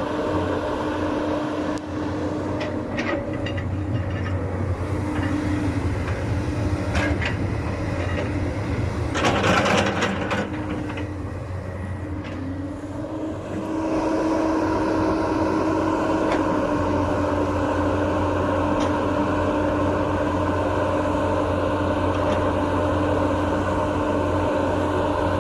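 Hyundai hydraulic excavator's diesel engine running steadily while it works, with scattered knocks, a louder noisy stretch of about a second and a half about nine seconds in, and the engine growing louder about fourteen seconds in.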